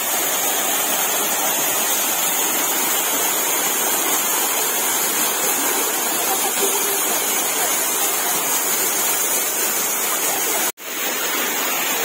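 Waterfall pouring into a rock pool: a steady, even rushing of falling water. It cuts out for an instant near the end, then carries on.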